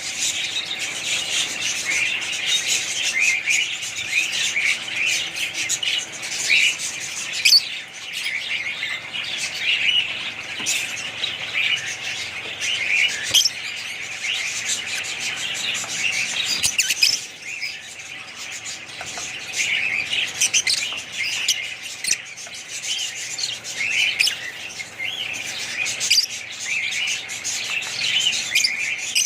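Many small birds chirping and chattering at once in a dense, unbroken chorus, briefly thinning a little past the middle.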